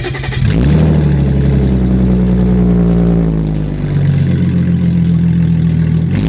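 Audi S4 engine starting, flaring briefly in revs, then settling into a steady idle.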